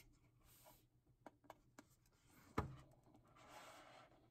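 Faint handling noise of a 3D printed plastic clock: scattered light clicks, one sharp knock a little past halfway, then a short scraping rub.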